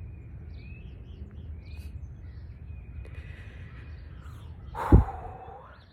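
Outdoor ambience: a steady low rumble with faint bird chirps, and about five seconds in one loud, harsh sound with a thump.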